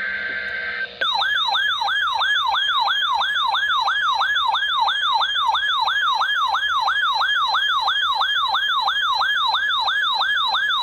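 Electronic emergency-alert siren tone announcing a new severe thunderstorm warning, a loud sweep that falls in pitch and repeats about three times a second, starting about a second in. Before it comes the end of a buzzing burst of data tones, the alert's digital header.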